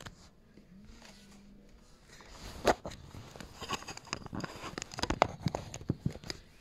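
Handling noises close to the phone's microphone as the phone is set up on its stand. After a short quiet stretch there is a sharp knock between two and three seconds in, then scattered clicks and rustles.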